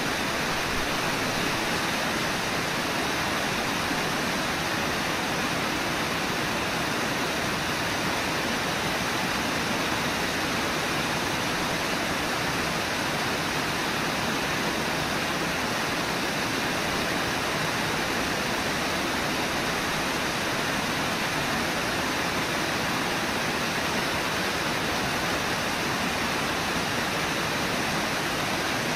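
Brooks River water rushing steadily over shallow riffles, an even, unchanging rush of flowing water.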